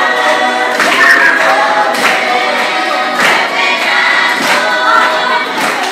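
A group of Marshallese students singing a welcome song together, unaccompanied, with sharp handclaps about once a second.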